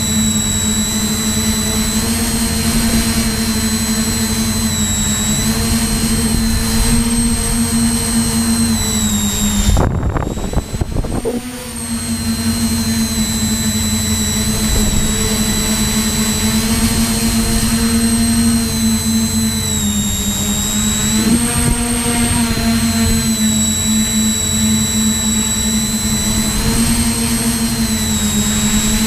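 Tricopter's electric motors and propellers whining steadily, the pitch shifting slightly up and down with throttle. About ten seconds in the motors drop off sharply for a second or two, then spool back up.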